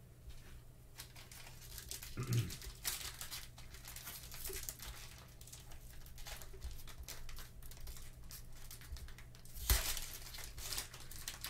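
Cellophane wrapper of a Panini Illusions cello pack of basketball cards crinkling and tearing as gloved hands work it open. The crackling comes in irregular bursts, with a soft knock about two seconds in and a louder rip near the end.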